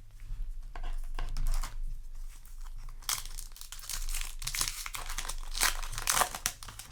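Yu-Gi-Oh! trading cards and their foil booster-pack wrapper being handled, with irregular crinkling and rustling. It grows busier about halfway through.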